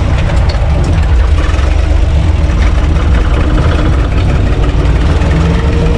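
UTB U445 DT 4x4 tractor's diesel engine running steadily and loudly while the tractor drives along, heard from inside its cab.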